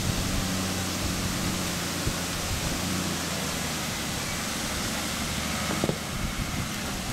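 Toyota 4WD's diesel engine running at low revs as it crawls over rock ledges, under a steady hiss, with a single knock about six seconds in.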